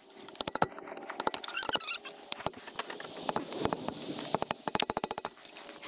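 Hand tools clicking and clinking on metal in quick, irregular runs of sharp clicks while a stuck, stripped bolt on the turbo is being worked loose.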